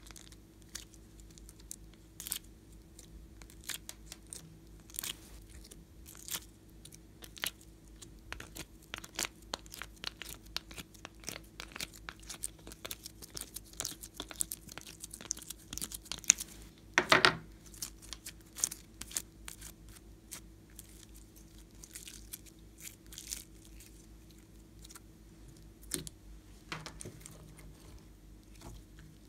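Glossy slime being picked by hand out of a plastic ice-cube tray and squished: a run of sticky crackles and small pops, with one louder burst of crackling about two-thirds of the way through.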